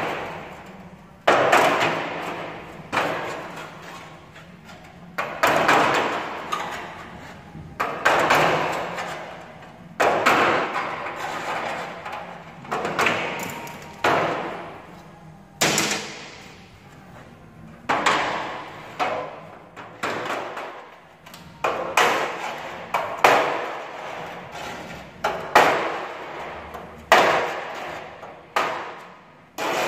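Hammer blows on a punch, knocking old rivets out of the hinge on a 1937 Chevrolet Maple Leaf truck's steel bonnet. About one sharp metallic strike every second or two, irregularly spaced, each ringing on in the sheet-metal panel.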